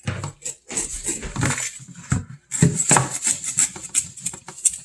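Kitchen clatter of utensils and dishes during raw chicken preparation: a run of irregular sharp knocks and clinks.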